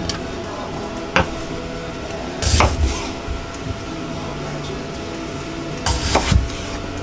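Kitchen cookware being handled: a sharp knock about a second in, then two louder bouts of clattering and bumping, over a steady hiss.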